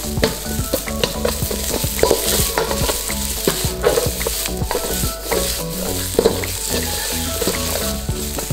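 Chopped vegetables sizzling in a little hot oil in a stainless steel mixing bowl used as a wok, stirred fast with a metal ladle that clinks and scrapes against the bowl many times a second. The veg is just starting to char.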